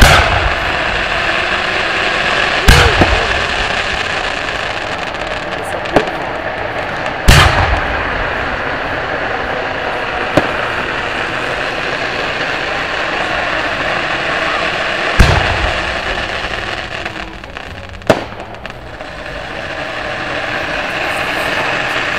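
Aerial firework shells bursting overhead: six sharp booms at irregular intervals, a few seconds apart, some trailing off in a low rumble, over a steady background hubbub.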